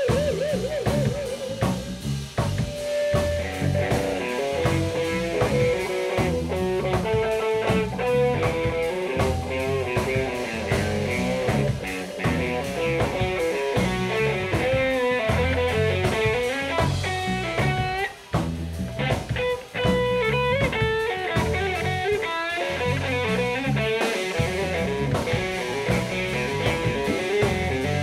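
Live funk-jazz band playing: drum kit, electric bass and electric guitar, with a lead melody bending and wavering in pitch over the groove. The band drops out briefly twice about two-thirds of the way through.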